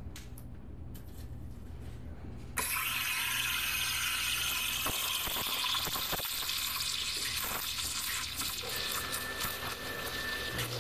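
UNIC espresso machine's steam wand opening about two and a half seconds in and hissing steadily as it steams milk in a stainless steel pitcher. A faint thin whistle joins the hiss near the end.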